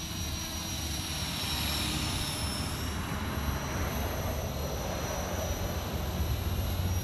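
Walkera V450D03 electric RC helicopter flying at a distance: a steady high whine from its motor and rotor over a rushing hiss.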